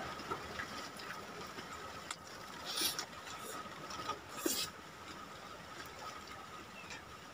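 Hand-eating sounds: fingers picking at fried fish and rice, with small mouth and chewing clicks. Two brief louder bursts come a little under three and about four and a half seconds in.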